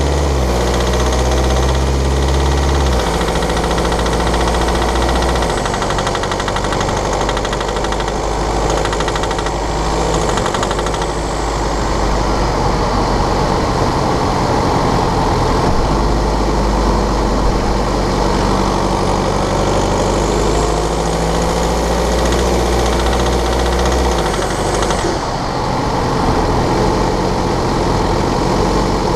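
BMW N47 2.0-litre four-cylinder diesel running with a rattling, ticking noise, the kind it makes cold and under load at about 1500 rpm, which the owner traces to a faulty injector. The engine note shifts about 3 seconds in and again near the end.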